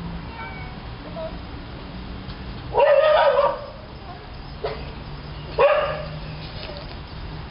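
Loud animal calls: one lasting most of a second about three seconds in, a shorter sharp one a little before six seconds, and a fainter one between them.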